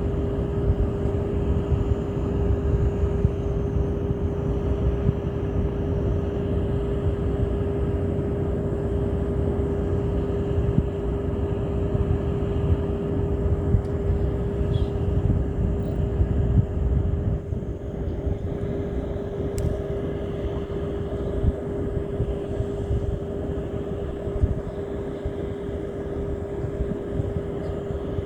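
Steady motor drone with a constant hum and a low rumble underneath.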